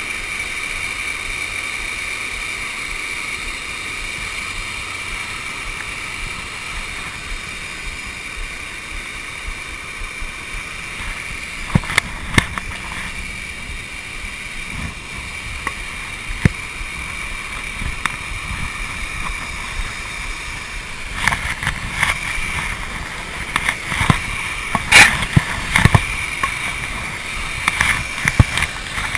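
Steady rush of a small waterfall pouring into a pond. From about halfway in, sharp knocks and bumps of gear being handled close to the microphone break in, coming thick and fast near the end.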